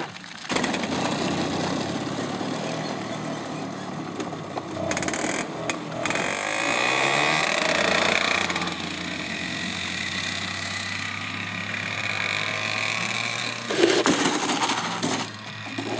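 Racing go-kart engine starting abruptly about half a second in, then running and revving as the kart pulls away. The pitch rises and falls as it accelerates through a corner, and there are louder bursts near the end.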